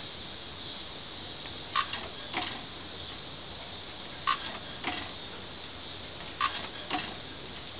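Sharp clicks in pairs, about every two seconds, as the flywheel of a hit-and-miss engine built from an old air compressor is spun by hand for starting; the engine does not catch.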